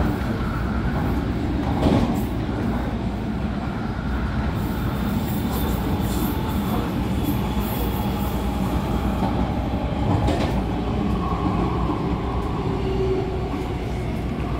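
Interior running noise of an MTR Tung Chung Line A-Train (Adtranz-CAF electric multiple unit) travelling along the line: a steady rumble of wheels and motors, with two sharp knocks about two and ten seconds in. A faint whine comes in over the last few seconds as the train approaches the station.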